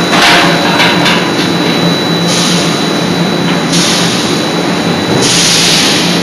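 C92K-80 CNC hydraulic die forging hammer at work: a steady machine hum with a few short knocks in the first second, then long bursts of loud hissing, one after another.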